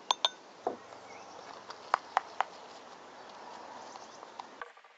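A stirring utensil clicking and scraping against a plastic bowl as thick slime is mixed, a handful of sharp separate taps over a steady hiss.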